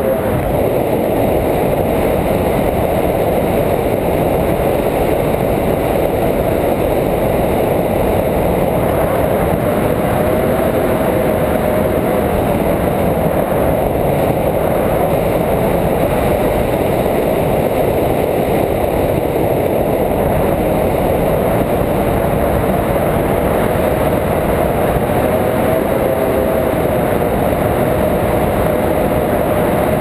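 Loud, steady wind rushing over the camera's microphone during a paraglider flight, with a faint tone that wavers slowly up and down in pitch.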